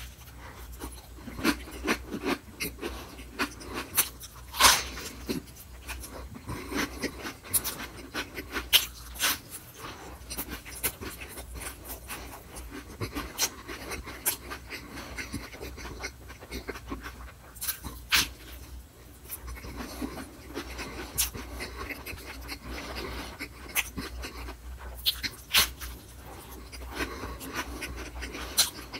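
Close-miked chewing of a soft, moist food, with wet lip smacks and mouth clicks scattered throughout. A steady low hum runs underneath.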